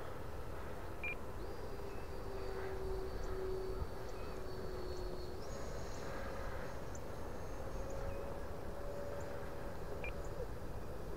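E-flite Viper 70mm RC jet's electric ducted fan in flight: a faint, steady whine that steps up in pitch about halfway through, over a low steady rumble.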